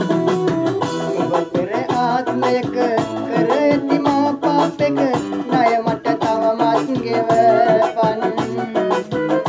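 Music with a plucked guitar, and a man singing along to it.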